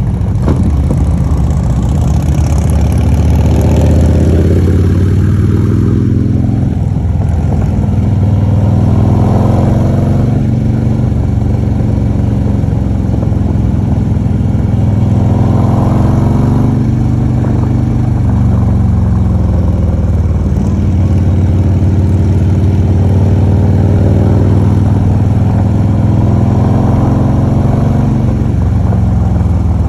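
Motorcycle engine running under way, heard from the bike itself. Its pitch climbs and falls several times, roughly every five seconds, as the throttle is rolled on and off through the curves.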